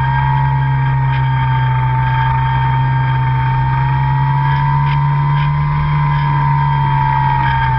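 RC airplane's motor and propeller running steadily in flight, heard up close from a camera mounted on the plane: a low drone under a higher whine whose pitch rises slightly midway and eases off near the end.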